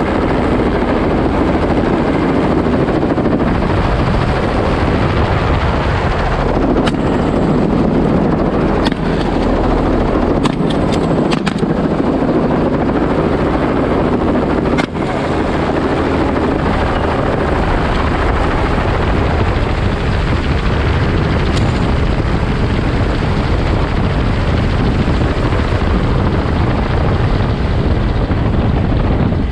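Light helicopter's rotor and engine running steadily, heard from the open door while flying low, with wind rushing past. A single sharp click about halfway through.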